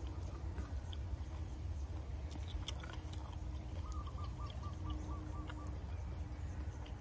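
Outdoor background with a steady low rumble; about four seconds in, a bird gives a quick run of about eight short repeated calls, and a few faint clicks come a little earlier.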